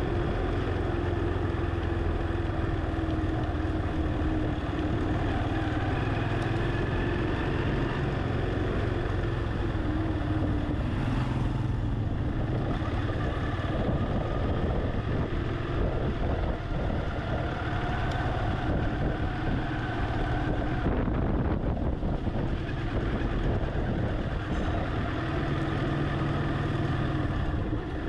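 Car engine and road noise heard from inside the cabin while driving slowly, a steady hum whose pitch drifts slightly.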